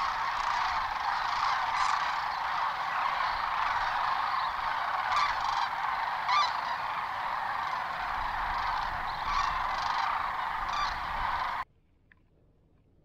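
A large flock of sandhill cranes calling all at once, a dense chorus of overlapping calls that cuts off suddenly near the end.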